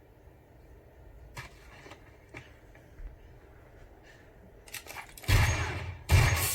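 Action-film soundtrack playing through a home-theatre setup in a room: quiet with a few faint knocks, then two loud sudden crashes with deep bass about five and six seconds in, each dying away briefly.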